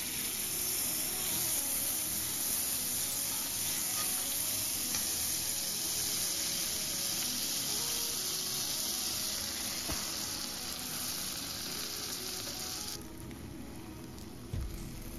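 Butter sizzling and crackling as it melts and foams in a hot stainless steel skillet. The sizzle drops off sharply near the end, when a slice of bread is laid over the butter.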